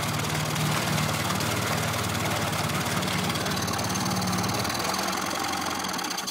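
Yamaha F15 15 hp four-stroke outboard running in a test tank, a steady engine note that eases off a little near the end.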